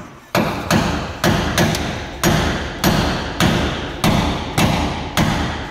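Hammer blows on a Ford Ka's door check strap, about ten steady strikes roughly every 0.6 s, each ringing briefly, driving the repaired strap into place.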